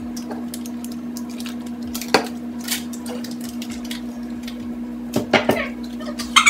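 Dishes and utensils clinking and knocking on a kitchen counter as they are handled: a sharp knock about two seconds in, a quick cluster of knocks around five seconds, another near the end, over a steady hum.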